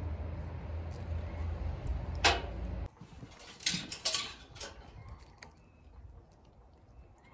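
Low rumble of the phone being handled, with a sharp click, cutting off abruptly about three seconds in. Then a few light metal clicks as pliers work a hook out of a catfish's mouth.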